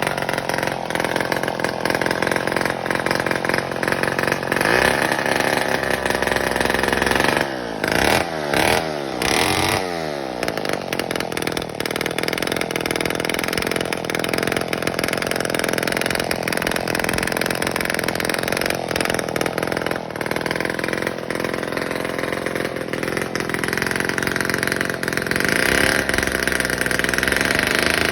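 Vintage Homelite 7-21 two-stroke chainsaw running during a tune-up. It is revved up and down several times in quick succession from about eight to ten seconds in, then runs on steadily.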